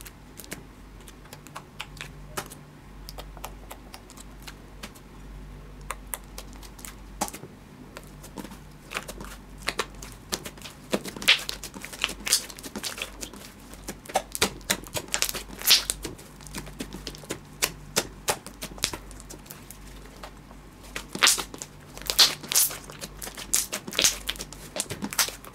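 Pink slime being squeezed and kneaded by hand as two slimes are mixed together: irregular wet clicks and pops, sparse at first, coming thicker after about a third of the way in, with a run of louder pops near the end.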